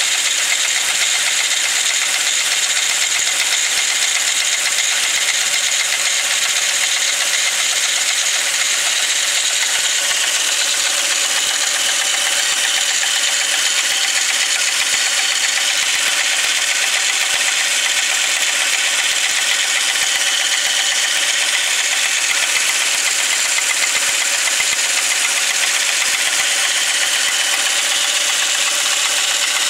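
Volkswagen Passat B5's VR5 five-cylinder engine running steadily with a rattling knock from inside the engine, whose cause the owner has not found.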